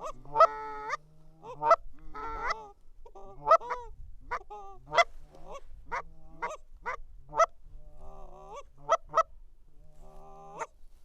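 Hunters' goose calls blown in a steady run of short honks and clucks, about two a second, with a few longer moans between, to coax a Canada goose in over the decoys.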